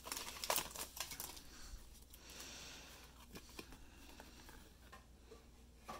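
Faint rustling and light clicks of Pokémon trading cards being handled and slid out of a just-opened foil booster pack. The sounds are busiest in the first second or so, then thin out to soft handling with an odd tick.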